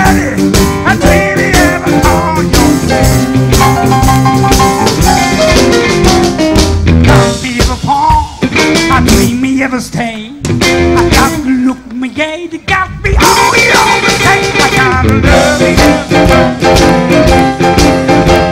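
Live blues band playing an instrumental passage, with electric guitar, piano and drum kit. About halfway through the band thins out for a few seconds to a sparser, wavering line, then the full band comes back in.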